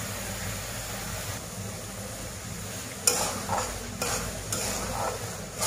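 Onion-tomato curry masala cooking in a wok with a steady low sizzle. About three seconds in, a spatula starts stirring it, with about five scraping strokes against the pan.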